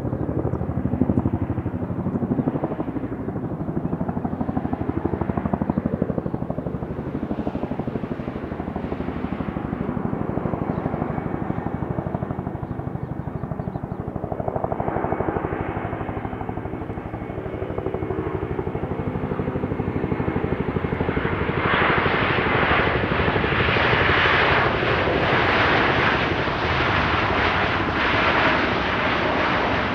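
Jet aircraft engines: a steady rumble at first, with engine tones coming in about halfway through. About two-thirds of the way in it turns much brighter and harsher as the aircraft comes close.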